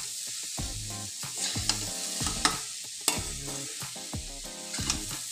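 Grated carrots frying dry in a metal kadai, sizzling steadily while a steel spatula stirs and scrapes them, with sharp clicks of the spatula against the pan about once a second. The carrots' own juice has cooked off, so the mash is frying rather than simmering.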